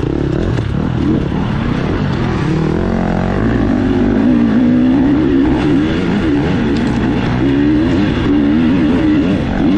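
Dirt bike engine being ridden hard off-road, its pitch rising and falling continuously with constant throttle changes.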